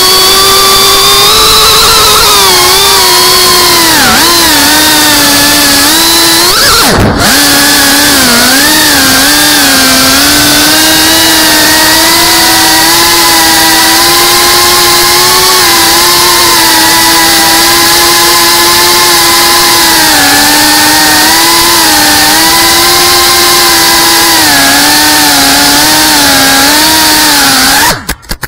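FPV quadcopter's brushless motors and propellers whining loudly, heard from the onboard camera, the pitch rising and falling with the throttle. About seven seconds in the pitch swoops sharply, and near the end the motors cut off.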